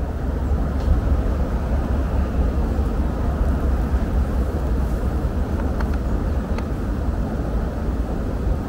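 Steady low outdoor rumble of background noise, with a couple of faint ticks in the second half.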